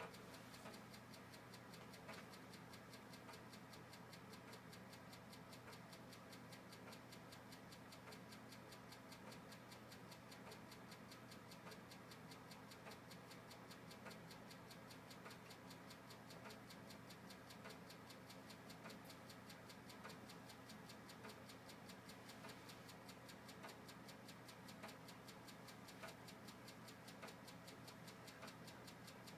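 Old computer running quietly: a steady low hum with rapid, regular faint ticking.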